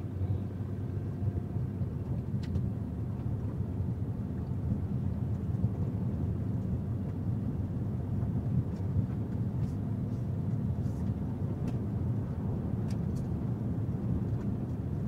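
Steady low road and engine noise inside a car cabin while driving.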